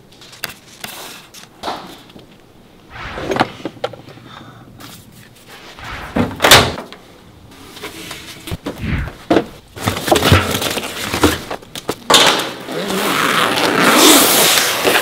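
Close handling noises: rustles and a few knocks as a sticker is handled and pressed on with a plastic squeegee card, the loudest knock about six and a half seconds in. Near the end, a few seconds of continuous rustling as a fabric backpack is handled.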